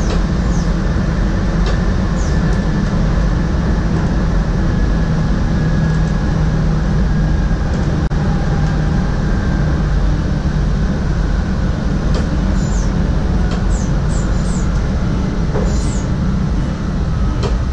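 NS SGMm Sprinter electric multiple unit running along the track, heard from the driver's cab: a steady loud rumble with a faint motor whine. A few brief high squeaks come about two-thirds of the way through.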